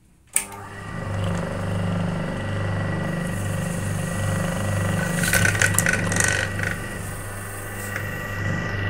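Electric sewing machine starts with a click about a third of a second in, then runs steadily as it stitches an outline through fabric held in an embroidery hoop.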